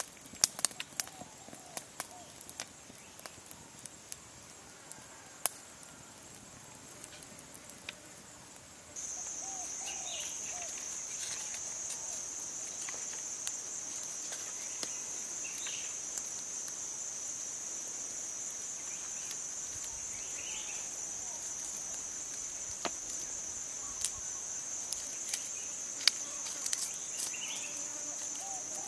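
A steady, high-pitched chorus of buzzing insects that comes in suddenly about nine seconds in and runs on. Scattered sharp clicks and snaps come from the green stick skewer and the binding fibre as skinned frogs are threaded onto it, and a few short bird chirps sound now and then.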